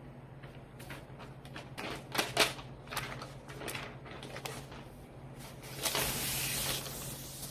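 Packaging of a laptop unboxing being handled: a string of taps, clicks and rustles, then about a second of steady hiss near the end as something slides or peels, over a faint low hum.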